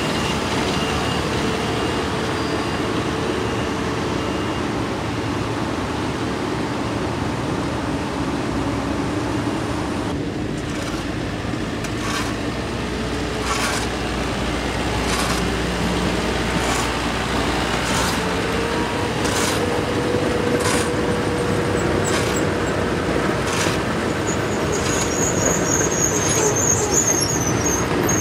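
Diesel construction machinery running steadily, with regular scraping strokes about every second and a half from about a third of the way in: a hand broom sweeping milled asphalt. A brief high squeal near the end.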